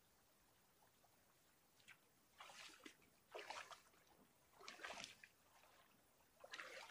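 Rubber boots wading through shallow river water: four splashing steps, starting about two seconds in.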